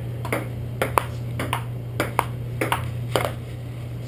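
Table tennis rally: the ball clicks off the paddles and bounces on the table in quick taps, about ten in three seconds, some in close pairs. Under it runs a steady low hum.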